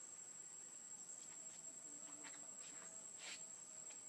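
Faint insect chirring, one steady high-pitched drone, with a few soft ticks about two to three seconds in.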